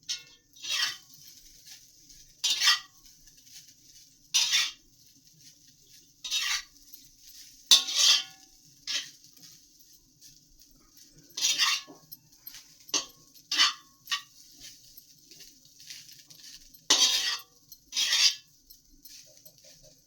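A metal spatula scraping and clinking against a wok as fried rice is stirred and tossed. The strokes come in irregular single strokes one to two seconds apart, a few with a brief metallic ring.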